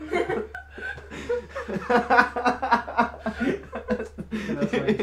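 A man laughing, a long run of chuckles.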